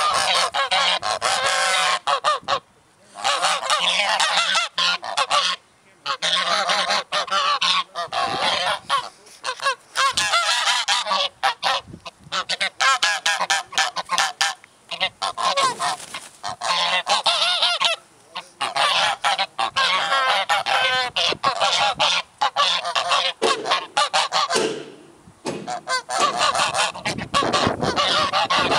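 A flock of geese honking, many loud calls overlapping almost without a break, with a few short lulls.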